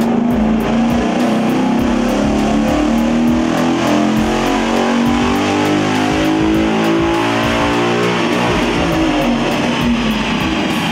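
Rock music led by electric guitar, with a Mustang GT's 5.0 V8 running hard under load on a chassis dyno beneath it, breathing through a GT350 sport cat-back exhaust.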